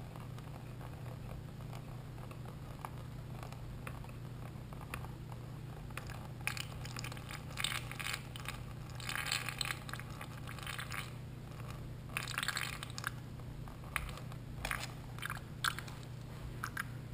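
Coolant drain bolt on a Honda NT700V engine being unscrewed by hand: irregular gritty scraping and crunching with small clicks, in bursts over the second half, above a steady low hum.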